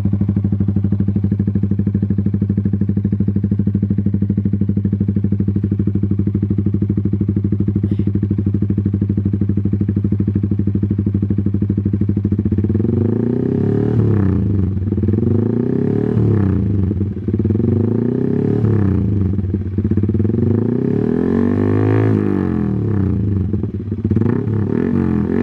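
Yamaha R15 V3's 155 cc single-cylinder engine running through a Proliner Carbon Short TR-1R racing exhaust with its dB killer removed. It idles steadily for about twelve seconds, then is blipped about six times, the revs rising and falling with each blip. The un-baffled exhaust is very loud.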